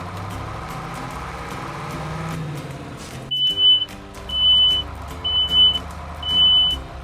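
Background music, joined from about three seconds in by four loud electronic beeps at one high pitch, each about half a second long and about a second apart.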